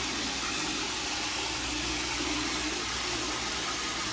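Water spraying from a handheld shower head into a plastic bucket as it fills, some of the spray hitting the tiled floor: a steady rushing hiss.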